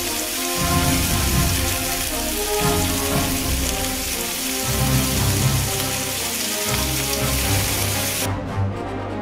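Glazed chicken skewers sizzling on a hot ridged cast iron griddle plate, a steady hiss, which cuts off suddenly near the end. Background music plays under it.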